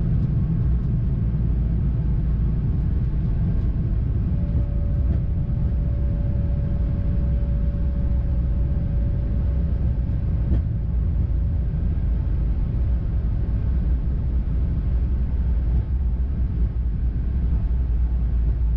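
Steady low rumble in a Boeing 787-9 cockpit during the landing rollout: tyres on the runway and engine and airflow noise as the airliner slows. A faint steady whine comes in about four seconds in and fades out about ten seconds in.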